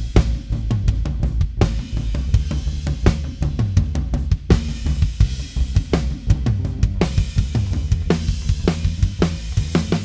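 Drum kit with bass guitar playing back through a live mixing console. The kick drum and bass guitar are up front, with snare, hi-hat and cymbal hits in a steady rock beat. The kick's EQ is being adjusted, with its flabby low-mids around 250 Hz cut.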